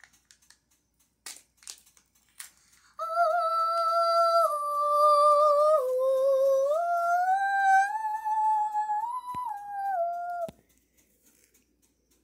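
A child humming a short tune with no words, a few held notes stepping up and down in pitch for about seven seconds, starting about three seconds in. Before it come a few light plastic clicks and rustles.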